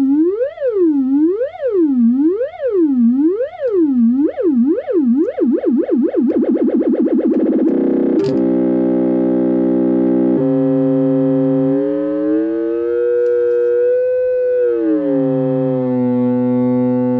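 Synthesizer tone under frequency modulation: its pitch swings up and down about once a second, the swings speed up until about eight seconds in, and they blend into a steady tone thick with overtones. Its timbre then shifts, and near the end the pitch bends up and back down.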